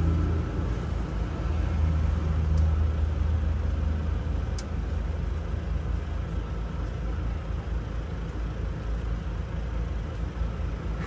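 Steady low drone of a running engine, louder for the first four seconds or so and then settling lower, with a faint steady high tone above it.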